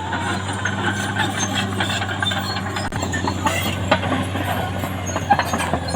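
Caterpillar D6R XL crawler bulldozer's diesel engine running steadily under load, with irregular metallic clanking and squeaking from its steel tracks.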